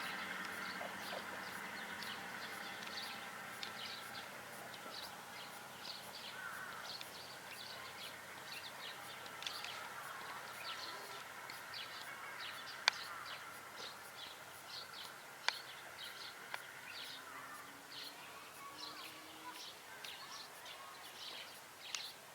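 A KiHa 200 diesel railcar's engine hum slowly fading as it runs off into the distance, while small birds chirp over and over, about twice a second. A few sharp clicks stand out, near the middle.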